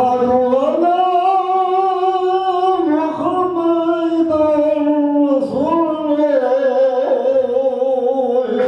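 A man chanting Quran recitation aloud in long, melodic held phrases with a few short breaths between them, as an imam leading the congregational Friday prayer.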